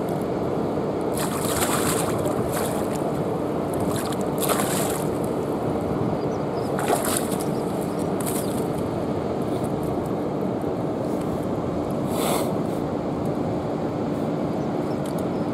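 Water sloshing and splashing in a shallow river margin as a pike is landed by hand, with several short splashes over a steady background rush.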